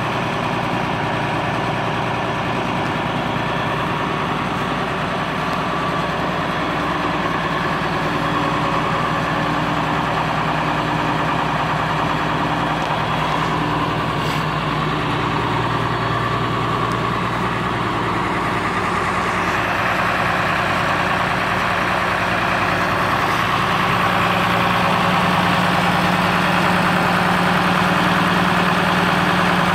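1970 International Harvester 1456 tractor's turbocharged six-cylinder diesel idling steadily, a little louder over the last few seconds.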